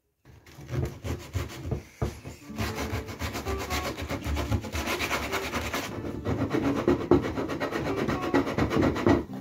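Hand sanding of a steam-bent oak kayak cockpit rim with folded sandpaper, rounding off its sharp edges. It starts as a few slow, uneven rubs, then about two and a half seconds in settles into rapid back-and-forth scraping strokes.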